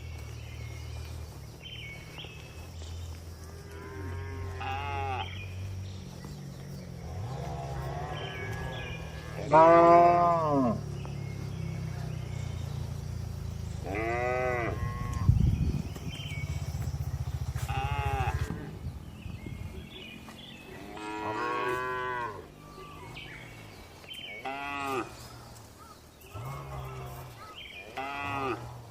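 Cows mooing in a barn: about eight separate drawn-out moos from several animals, the loudest about ten seconds in. A low rumble sits underneath for the first two-thirds, then fades.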